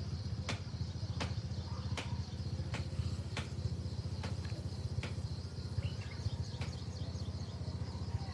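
Outdoor field ambience: footsteps crunching on dry straw about once or twice a second over a steady insect buzz and a low hum, with a few faint bird chirps in the second half.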